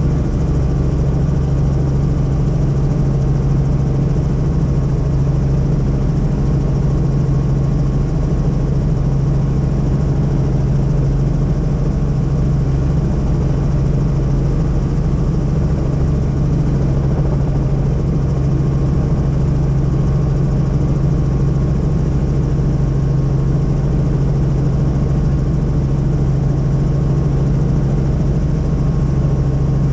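Helicopter cabin noise in flight: a steady drone of rotor and engine, with a strong low hum that holds one even pitch throughout.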